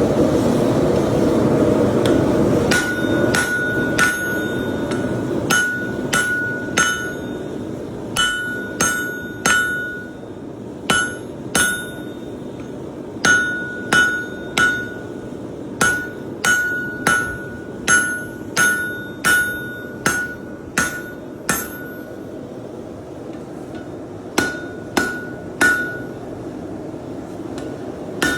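Hammer strikes on an anvil while forging hot metal. Each blow rings with a clear tone, coming in irregular runs of one or two a second from a few seconds in, with a short pause before the last few. Under them the forge burner keeps up a steady roar, loudest at the start.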